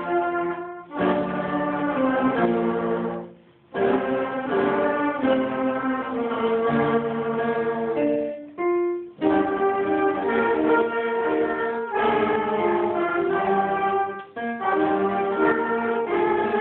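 School concert band of trombones, a low brass horn, clarinets and flutes playing a piece together in sustained chords, with a few short breaks between phrases.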